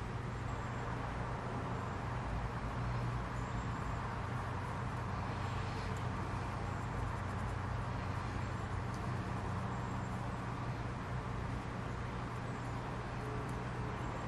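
Steady low background hum with an even hiss and no distinct events.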